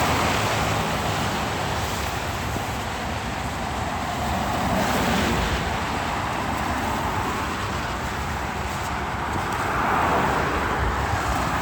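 Traffic passing on a wet highway: a steady hiss of tyres on the rain-soaked road, swelling as vehicles go by near the start and again about ten seconds in.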